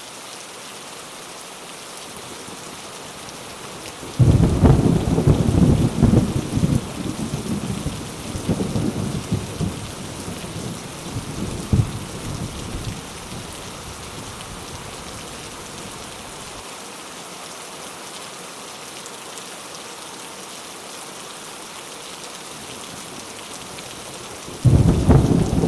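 Steady rain falling throughout. About four seconds in a thunderclap breaks suddenly and rumbles with crackles for around eight seconds before fading, and a second thunderclap breaks near the end.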